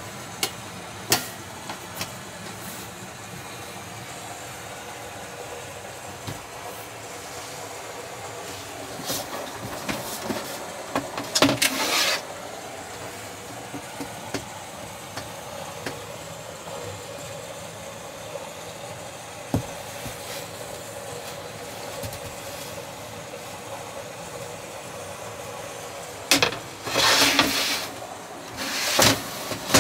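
Scattered sharp clicks and knocks, with two short spells of louder rustling or rubbing, about ten seconds in and again near the end, over a steady low hum.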